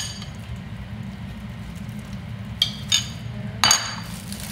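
Spoon and dishes clinking: a sharp ringing clink at the start, two lighter clinks about two and a half to three seconds in, then a louder clink with a short clatter as a dish is set down near the end. A steady low hum runs underneath.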